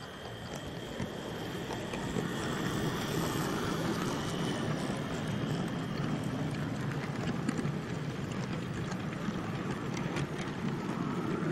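Hornby OO-gauge model train running past close by: a steady rumble of wheels on the track and the motor. It grows louder over the first two seconds, with light clicks of wheels over rail joints.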